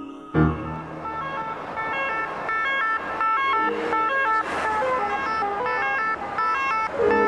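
A sudden low thump, then electronic tones hopping rapidly between several pitches in a siren-like pattern, part of the film's electronic soundtrack; lower sustained tones come back near the end.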